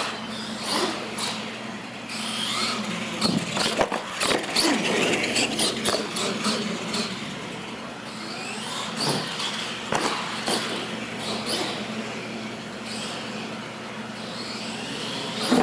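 R/C monster truck driving freestyle: its motor whines up and down as it accelerates and brakes, with scattered sharp knocks and clatters as the tyres and chassis hit the floor and plywood ramps.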